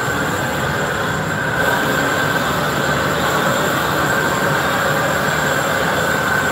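Gas glassblowing torch burning with a steady rushing noise and a faint steady whistle, heating the punty end of a glass piece.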